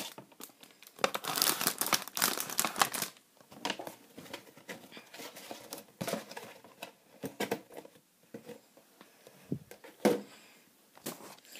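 Clear plastic wrapper crinkling in irregular crackles as a diecast model car is worked out of it, busiest in the first three seconds and with a sharper crackle about ten seconds in.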